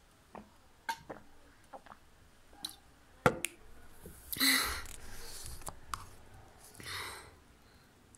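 Small clicks and gulps while drinking from a plastic water bottle, with a sharp knock about three seconds in as the bottle is handled or set down. Two breathy exhales follow, the first louder.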